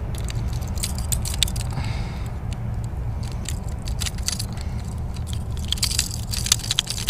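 Irregular clicks and light metallic rattles as a pike is held by the lower jaw and a swimbait's treble hooks are worked free of it, over a steady low rumble.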